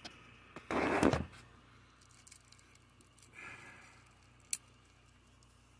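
Handling noise from the recording phone being set down: a brief loud scraping rustle about a second in, then faint rustling and one sharp click near the end.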